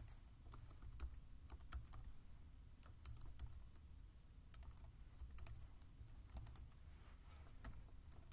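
Faint, irregular keystrokes on a computer keyboard, a few a second, typing a comment into a text box, over a low steady hum.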